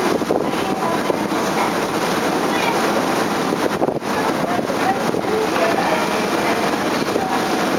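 Steady rushing noise on board a car ferry under way: wind on the microphone over the ship's running and the water, with faint voices of other passengers.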